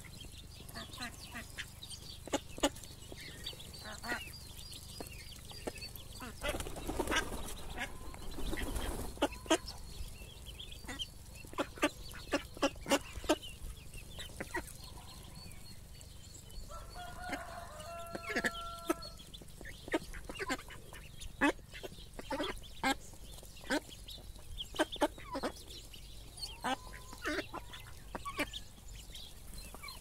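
Ducklings peeping and ducks feeding on scattered grain, with an irregular patter of short sharp pecks on the ground. There is a brief steady call a little past halfway.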